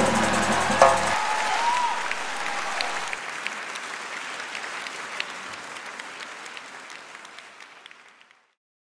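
A theatre audience applauding as the last chord of the band ends about a second in; the applause fades steadily and cuts off shortly before the end.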